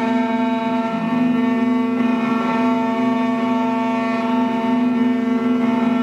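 Alpha automatic key cutting machine's spindle running with a steady whine while its end mill cuts the track of a laser (sidewinder) car key blade.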